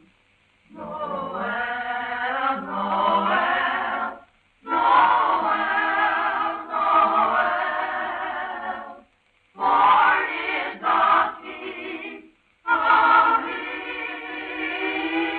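A choir singing a slow carol in four long held phrases, each broken off by a brief pause. The sound is dull and thin, with no high end, like an old film recording.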